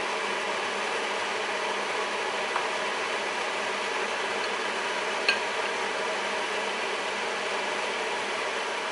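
A steady, even rushing noise, like a running fan, with a sharp click about five seconds in.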